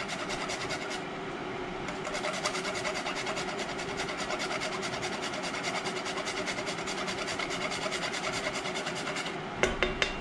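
Whole nutmeg grated on a Microplane rasp grater: a steady scraping in quick, even strokes. Near the end come a few sharper knocks.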